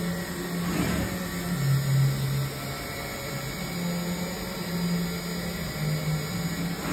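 Dugard Eagle 850 vertical machining center running: a steady mechanical hum that steps down in pitch about a second and a half in, then back up and down a few more times.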